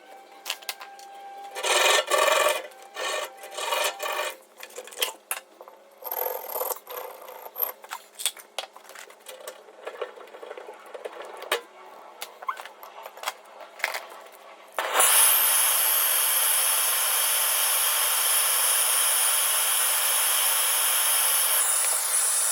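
Tools scraping, rubbing and clicking on metal tubing during refrigerator repair. About fifteen seconds in, a loud steady gas hiss starts, runs for about seven seconds and cuts off.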